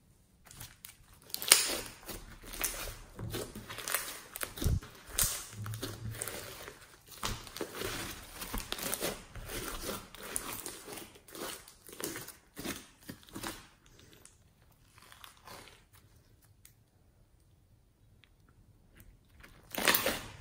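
Hands kneading and squeezing slime with floam beads mixed in, making dense, irregular crunching and crackling pops. They go quiet for a few seconds about three-quarters of the way through, then there is one loud squish near the end.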